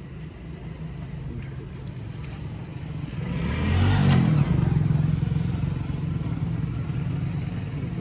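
Road traffic: a steady motor-vehicle engine hum, with a vehicle going past that swells louder about three to four seconds in and then eases off.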